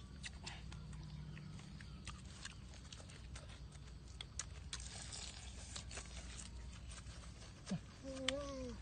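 Close-up eating sounds of people chewing cooked fish by hand: rapid wet clicks and lip-smacks, with a short, slightly falling hummed "mmm" near the end.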